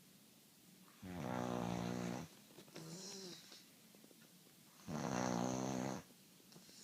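A person snoring: two long, loud, pitched snores about four seconds apart, with a quieter breathy sound carrying a faint wavering tone between them.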